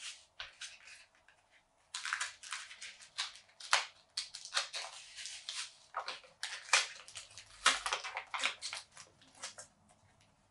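Cardboard-and-plastic blister pack being torn and picked open by hand: irregular crackling and ripping, thicker from about two seconds in.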